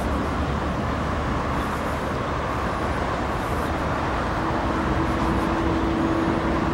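Steady road traffic noise from vehicles crossing a road bridge. A steady hum joins about four and a half seconds in.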